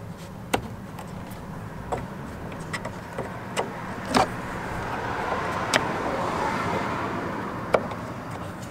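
Sharp, scattered clicks of a thin metal pick and screwdriver prodding at the window winder handle's hidden circlip and plastic trim of a van door, about six in all. Beneath them a steady background rumble swells in the middle and fades near the end.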